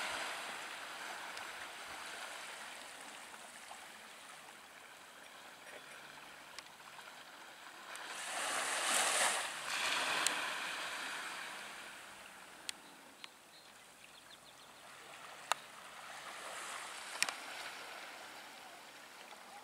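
Sea water washing and lapping at the shore, one wash swelling up about halfway through, with a few sharp clicks scattered through.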